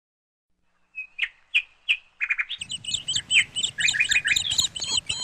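Birds chirping: silence for about the first second, then a few short, separate chirps, and from about two and a half seconds many birds calling at once over a low background rumble.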